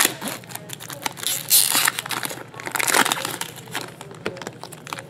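Plastic trading card pack wrappers crinkling and rustling in irregular bursts as packs are opened and handled, loudest about a second and a half in and again about three seconds in.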